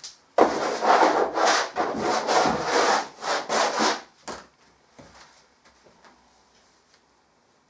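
Rubbing a large painting's surface by hand: quick, rough scraping strokes, about three a second, for some four seconds, then they stop.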